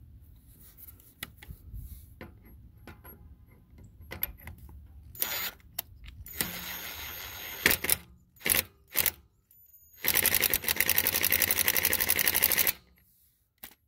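Ryobi P235 brushed impact driver running a lug nut back onto the wheel stud. It spins the nut freely with a steady whine for about a second and a half, then hammers in a fast even rattle for nearly three seconds as the nut seats. Light clicks and taps of the nut and socket come before it.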